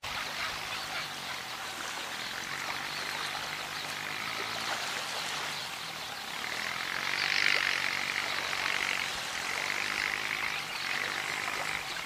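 Small waves washing up a sandy shore, with a flock of sandpipers giving soft chattering calls. The wash swells louder about halfway through and again near the end.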